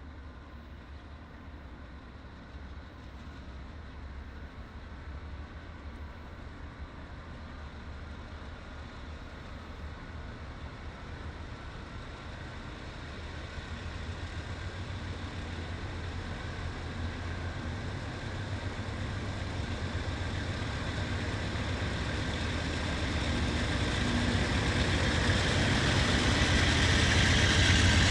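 Diesel locomotive running and approaching, its low engine hum growing steadily louder over the whole stretch and loudest at the end.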